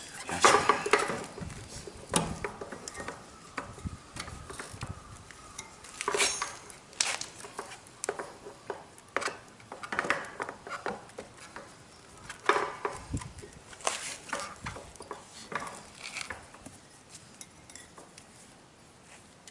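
Metal parts and hand tools of a motorcycle front drum brake being handled: irregular clinks, knocks and short scrapes, the loudest cluster about half a second in.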